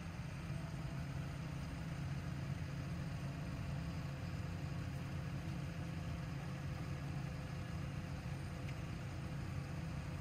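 A motor vehicle engine idling steadily, a constant low hum with no change in speed.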